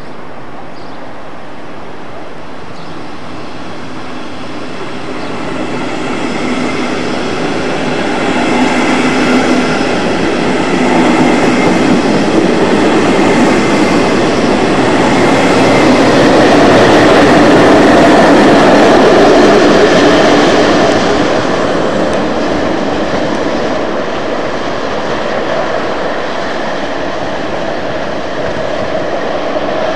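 Double-deck regional train pushed by an electric locomotive rolling past on the station tracks: steady wheel-and-rail rumble that builds, is loudest a little past halfway, then eases, with faint high squealing tones as it passes.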